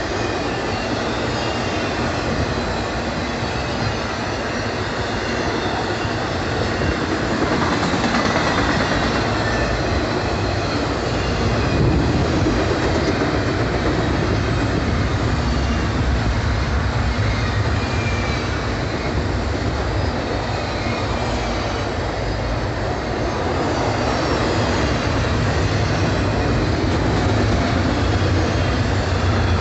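Double-stack intermodal freight cars rolling past: a steady rumble and rattle of steel wheels on the rails. A faint high wheel squeal comes through briefly, twice.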